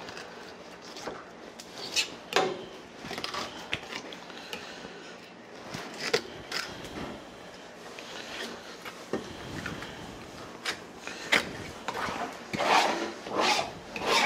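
Long filleting knife cutting and scraping along a sea bream's bones on a plastic cutting board, with scattered sharp clicks and knocks of knife and fish on the board. Louder scraping and handling sounds come near the end as the fillet comes away.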